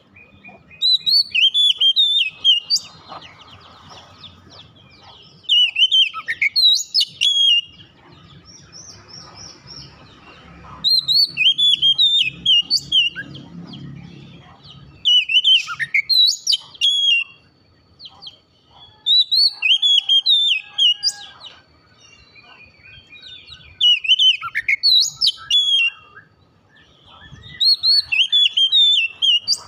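Oriental magpie-robin singing in full song: about seven loud bursts of rapid, varied whistled phrases, each a couple of seconds long, coming every four to five seconds.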